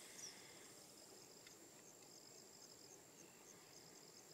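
Near silence, with faint insects chirping: short high chirps repeating evenly a few times a second over a steady thin high whine.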